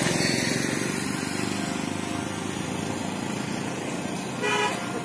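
A motor vehicle passing on the road, its engine and road noise loudest at the start and slowly fading. A short horn beep comes about four and a half seconds in.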